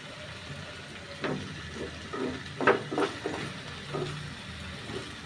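Metal spatula scraping and knocking against a coated kadai while stirring diced pumpkin in the pan: a quick run of scrapes and knocks from about a second in, the loudest near the middle, then two more single knocks later on.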